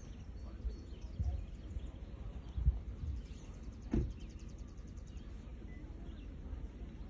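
Outdoor ambience of wind rumbling on the microphone, with a few low thumps and a knock about four seconds in. A brief, rapid, high-pitched trill sounds about three seconds in.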